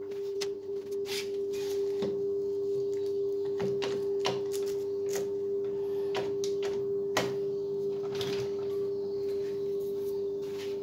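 A steady hum at one pitch, with a scattering of sharp clicks and knocks as a one-handed bar clamp is fitted and tightened over a steel knife blank and wooden handle scales.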